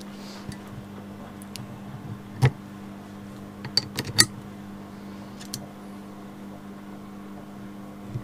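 Small metal clicks and clinks as motorcycle foot peg parts are handled and fitted onto the foot peg bar: a sharp knock about two and a half seconds in and a quick cluster of clinks around four seconds, over a steady low hum.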